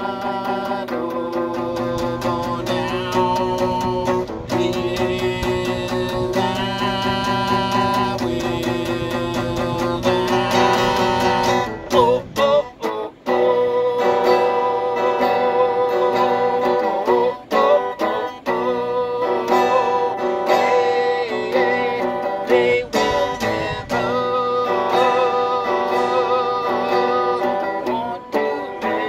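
Acoustic guitar strummed in a steady rhythm while a man sings along, his voice holding a wavering melody over the chords, with a few brief breaks in the playing.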